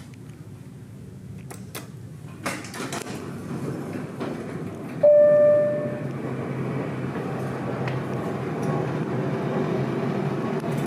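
Hydraulic passenger elevator in use: a few clicks and clunks, then a single electronic chime about five seconds in. After the chime comes a steady mechanical running noise that slowly grows louder.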